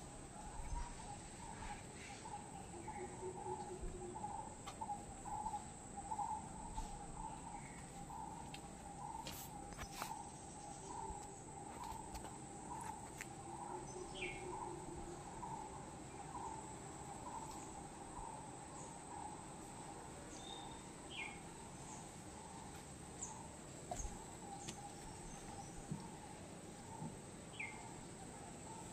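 Outdoor nature ambience: insects chirping in a steady pulse, a little under two a second, over a faint high steady whine, with a few short bird chirps here and there.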